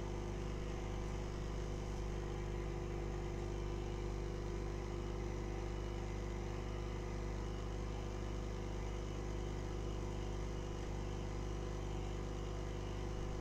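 Hot air rework station blowing steadily, a constant whir with a steady hum, heating the iPhone to soften the adhesive that holds it shut.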